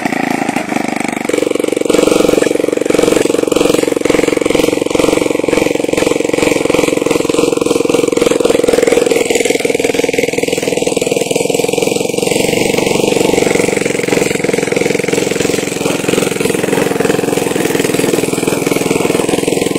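Motorcycle engine driving a homemade wooden car, running steadily under way, its note stepping up about a second in.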